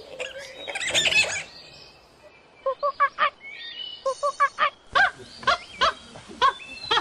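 Animal calls: a loud shrill squawking outburst about a second in, then short honk-like calls repeated in quick runs of three or four.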